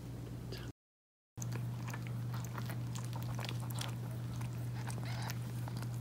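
Calico mother cat licking and chewing at her newborn kitten just after its birth: irregular wet clicks and smacks that start after a brief break in the sound about a second in. A steady low hum runs underneath.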